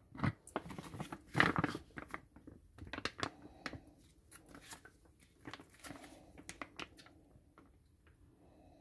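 Soft plastic mayonnaise pouch crinkling and crackling as it is handled and squeezed, in a string of irregular crackles that are loudest in the first two seconds and thin out near the end.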